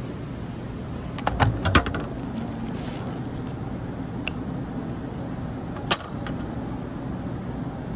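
A plastic takeout sushi container is handled and snapped open, giving a quick cluster of sharp clicks about a second and a half in. Near six seconds comes a single sharp crack as a pair of disposable wooden chopsticks is split apart. A steady background hum runs underneath.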